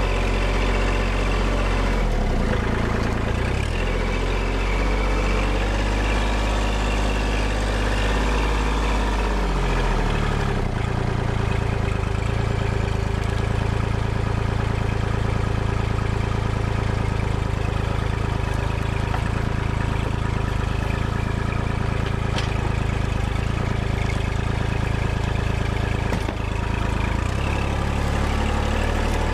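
Kubota L2501 compact tractor's three-cylinder diesel engine running steadily as the tractor drives. The engine note shifts a few times in the first ten seconds and again near the end.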